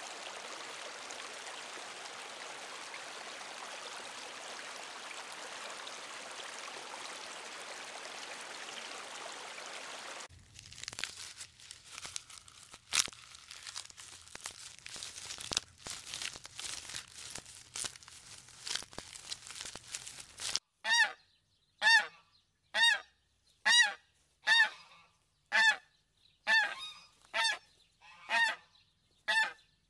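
A white domestic goose honking in a steady series of about ten calls, roughly one a second, through the last third; these are the loudest sounds. Before it come a steady aquarium hiss for about ten seconds, then leafy branches crackling and snapping as a giraffe browses.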